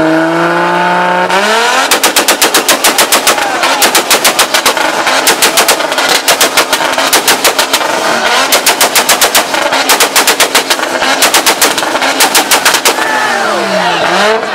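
Toyota Supra's straight-six engine on a two-step launch limiter. After a short rise in revs, it bangs out a rapid machine-gun string of exhaust pops, several a second, in repeated bursts. The revs drop away near the end.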